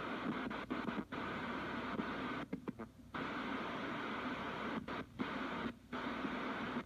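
Hiss and static from a Kenwood R-2000 communications receiver with a VC-10 VHF converter, in FM mode, tuned between stations. The hiss drops out suddenly and briefly about four times, the longest near the middle, as the tuning moves up the band.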